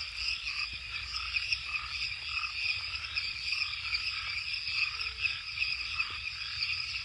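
A chorus of frogs calling by a lake: a steady, dense high trill with lower calls repeating about twice a second.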